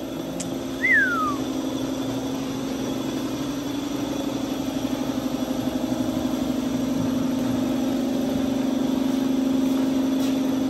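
An engine running steadily at an even low pitch, gradually getting louder. A short, falling whistle sounds about a second in.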